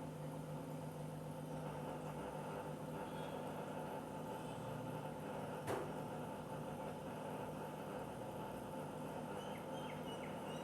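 IFB front-load washing machine running after being powered through a voltage stabilizer, a low steady hum, with one sharp click a little over halfway through.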